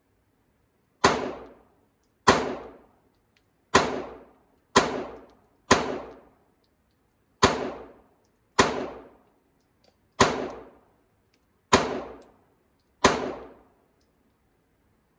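Handgun fired ten times in slow, aimed succession, about one shot every second to second and a half, each shot ringing off briefly in an indoor range booth.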